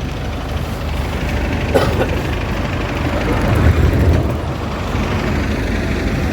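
Moving road vehicle: a steady low rumble of engine and road noise, with a brief knock about two seconds in.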